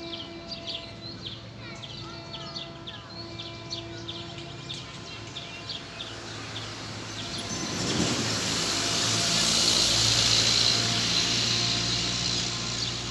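Birds chirping in the first half over outdoor ambience, then a loud steady rushing noise builds about halfway through and holds to the end, like a passing vehicle or train.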